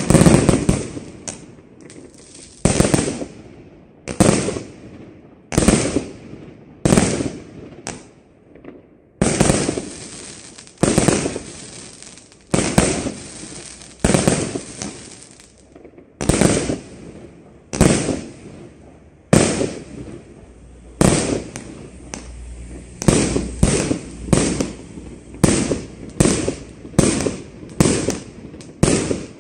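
Evolution Fireworks 'Endurance' multi-shot firework cake firing a steady string of shots, each a sharp bang with a fading tail. They come about one every second and a half at first, then faster, at nearly two a second, in the last third.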